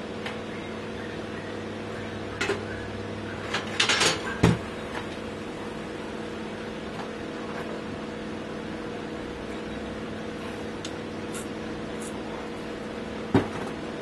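Metal clinks and clanks as a bicycle's rear sprocket cluster and wheel parts are handled: a cluster of knocks about four seconds in is the loudest, with single clanks earlier and near the end, over a steady low hum.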